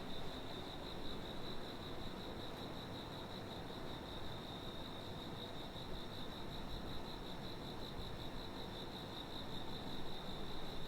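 A cricket trilling without pause: one high-pitched, finely pulsing tone, over a low, even background hum.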